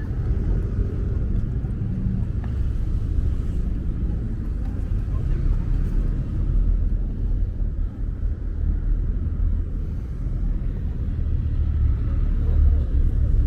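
Steady low rumble of a car in motion, with faint voices underneath.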